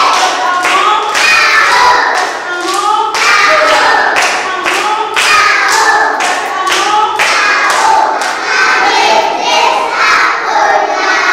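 A class of young children singing a song together in chorus while clapping their hands in a steady rhythm, about two claps a second.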